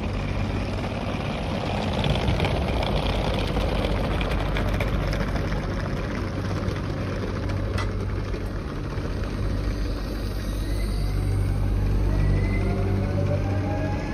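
Renfe electric commuter train at a platform, giving a steady low hum. From about ten seconds in, the traction motors start a rising whine that climbs steadily as the train starts to move.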